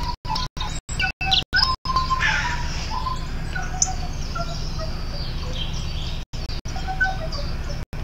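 Bird-like chirps and quick falling whistles, mixed with short piping notes from a small end-blown wind instrument. The sound cuts out for brief moments several times in the first two seconds and again near the end.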